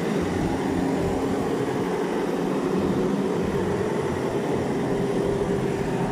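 Kaiser S2-4 walking excavator's diesel engine running steadily, a loud, even mechanical drone.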